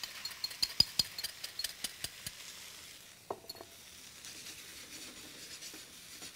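Beaten eggs with onion and ham sizzling in a nonstick sauté pan, while a fork or utensil stirs with a quick run of clicks over the first two seconds. About three seconds in comes one sharper tap with a short ring, then a soft, steady sizzle.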